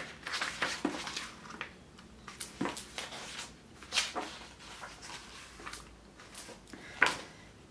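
Paper rustling and pages turning as a hardcover book and its loose printed inserts are handled, in short scattered bursts, with a sharper tap or slap about seven seconds in.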